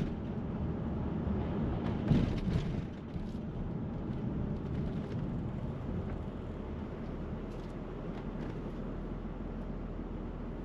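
City street traffic noise: a steady low rumble, with a brief louder swell about two seconds in.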